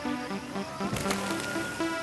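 Electronic dance music with a steady beat and a stepping synth melody, with a cymbal-like crash about a second in.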